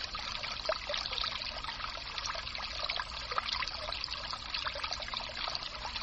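Water trickling steadily, with many small splashes.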